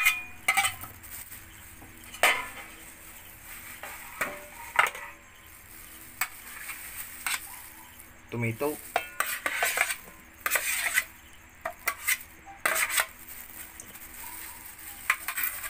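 Metal spoon scraping and clinking against stainless steel bowls in short irregular strokes as chopped vegetables are tipped in and stirred.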